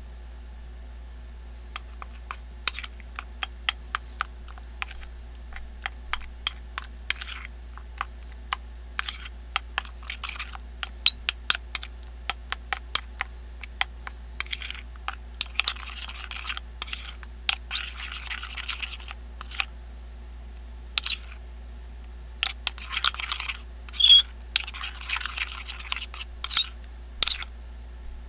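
A spoon stirring wet plaster of Paris in a small glass bowl: irregular clicks of the spoon against the glass, with stretches of wet scraping as the paste is worked, starting about two seconds in. The clicking is loudest near the end.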